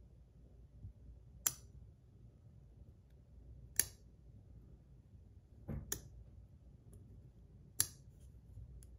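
An ACEdc Pico Pick fidget clicking: five sharp single clicks about two seconds apart, two of them close together near the middle.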